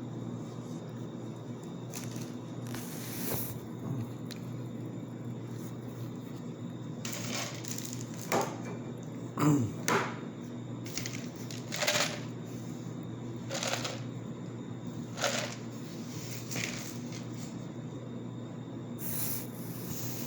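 Steady electrical hum in a small room, with about ten brief rustling and knocking noises scattered through it. The loudest comes about halfway through.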